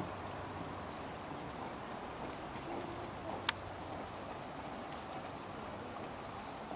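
Steady outdoor background noise among wet vegetation, with one short, sharp high-pitched chirp about halfway through.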